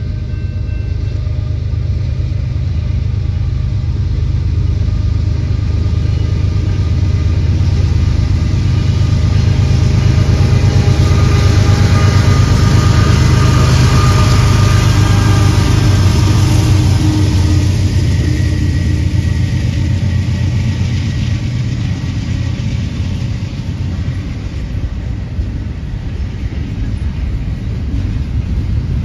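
Union Pacific diesel locomotives hauling a double-stack container train pass close by: the low engine drone builds to its loudest about halfway through, then gives way to the wheel noise of the container cars rolling past.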